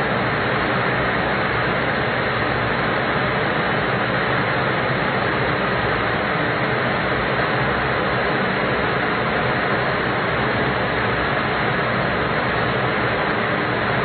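HALT chamber's pneumatic vibration table shaking a camera at 20G RMS: a loud, steady rushing noise without breaks.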